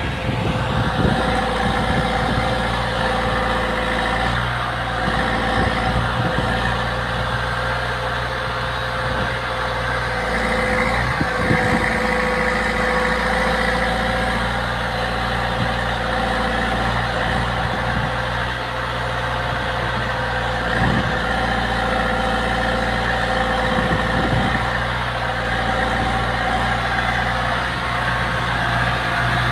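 Diesel engine of a Bull CH76 backhoe loader running steadily at a constant speed, with a steady whine over its low hum and a few faint knocks.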